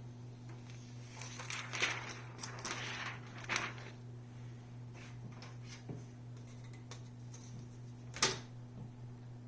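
Protective plastic film being peeled off a new laptop screen, rustling in a few bursts over about two seconds. Later come a few light clicks of handling and one sharp click near the end, over a steady low hum.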